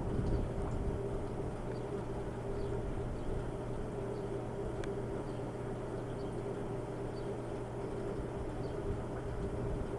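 Outdoor background noise: a steady low hum over a rushing haze, with faint short high chirps every second or so.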